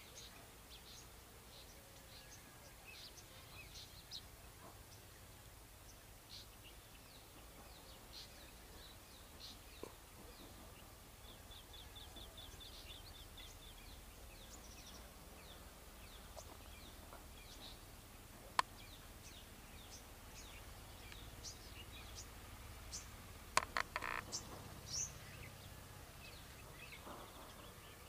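Several wild birds chirping and calling with short, high notes, with one bird giving a rapid trill of repeated notes about twelve seconds in. A steady low rumble runs underneath, and there are a few sharp clicks near the end.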